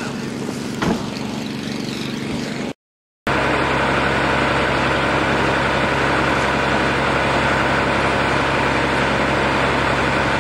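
A heavy engine idling steadily, with a brief break to silence about three seconds in, after which the hum comes back louder.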